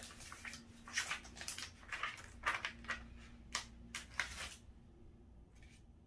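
Gem stickers being peeled off their sticker sheet and handled: irregular rustling and crackling strokes that stop about four and a half seconds in.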